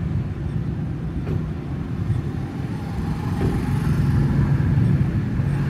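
Steady low hum of a running machine, growing slightly louder from about three and a half seconds in.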